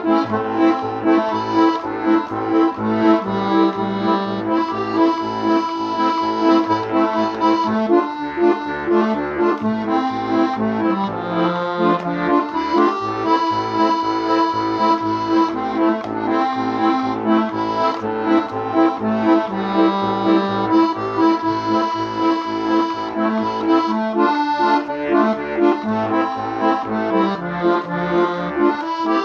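Accordion playing an instrumental passage: a sustained melody over a steady, pulsing bass-and-chord accompaniment.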